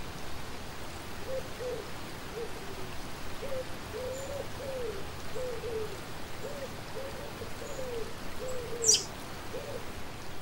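A steady rush like flowing water, with a run of about a dozen soft, low hoots, each bending up and then down in pitch, and one short high chirp near the end.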